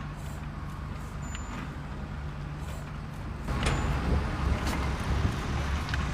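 A vehicle engine running steadily with a low hum. About three and a half seconds in it gets louder and rougher, with a few sharp clicks over it.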